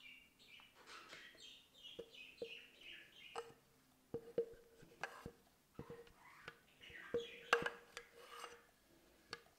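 Glass mixing bowl clinking and ringing again and again as a silicone spatula scrapes batter out of it, each knock leaving the same short ring, the loudest about two thirds of the way in. A run of short high chirps in the first three seconds.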